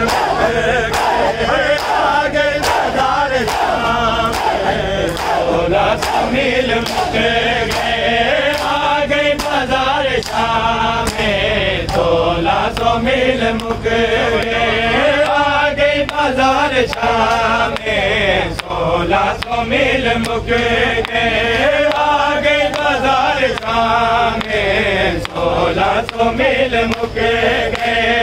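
Men's voices chanting a noha lament in unison. Under the chant, a crowd of mourners beats their chests in matam, a sharp slap landing about once a second in a steady rhythm.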